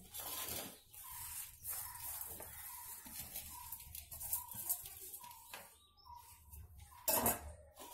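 Chilli seeds being scraped by hand off a steel plate into a plastic bowl, with a faint chirping repeated about twice a second for the first five seconds. A louder short scrape or knock comes about seven seconds in.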